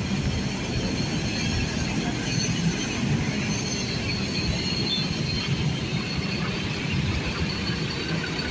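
Street traffic on a wet road: tour buses and motorcycles going past with engines running and tyres on wet asphalt. A thin high squeal comes through about three to five seconds in.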